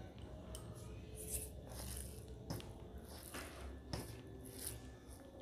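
Quiet hand-eating sounds picked up by a clip-on mic: fingers squishing rice and mutton curry on a steel plate, with a few light clicks against the plate, and some chewing.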